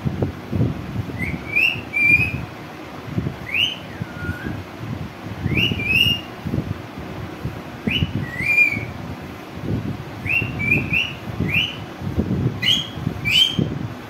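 A green Indian parakeet calling: short, sharply rising chirps, some ending in a brief level whistle, repeated every second or two. A low, uneven rumble runs underneath.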